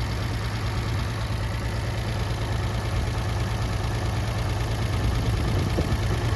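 Farmall 460 tractor engine idling steadily, with a little clicking and tapping that the owner is unsure is normal.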